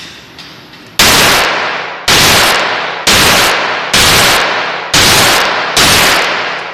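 .38 revolver fired six times in a steady string, about one shot a second, each shot trailing off in echo.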